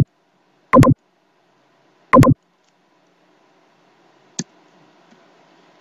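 Computer mouse clicks picked up by the microphone: three loud, sharp clicks in the first two and a half seconds, then a lighter click about four seconds in.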